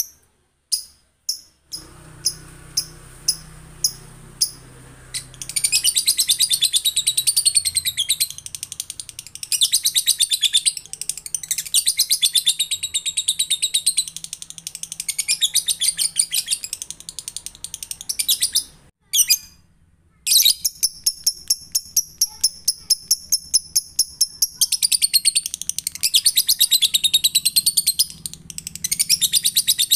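Male lovebird (Agapornis) giving its ngekek call: a few separate chirps, then a long, very rapid chattering trill lasting over ten seconds. After a brief pause a second long trill follows.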